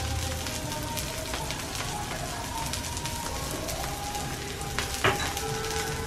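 Potatoes shallow-frying in oil in a frying pan over high flame: a steady crackling sizzle. A single brief click about five seconds in.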